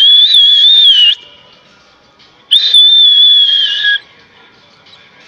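Two long, steady high whistles, each about a second and a half, with faint high peeps from baby birds near the start of each.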